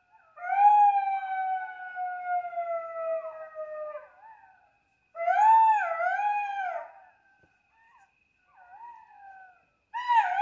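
Golden jackals howling: a long wail that falls slowly in pitch, then a shorter wavering howl about five seconds in, a few fainter calls, and another falling howl starting near the end.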